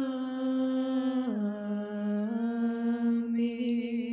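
Syriac liturgical chant: one voice holding a long melismatic note that steps down in pitch about a second in and rises a little a second later, taking on a wavering vibrato near the end.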